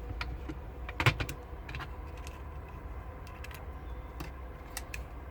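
Hard plastic case parts and a circuit board being handled and set against each other: scattered clicks and knocks, the loudest about a second in, over a steady low hum.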